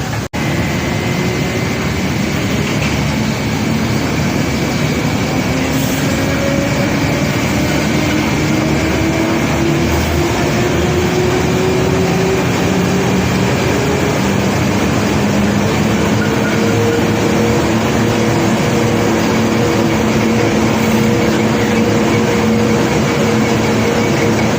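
Heavy unloading machinery's engine running steadily under load. Its pitch climbs slowly over the first half, then holds level.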